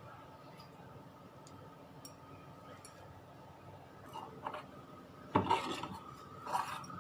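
A kitchen utensil scraping and rubbing against a dish or tray: a few short strokes in the second half, over a faint steady hum.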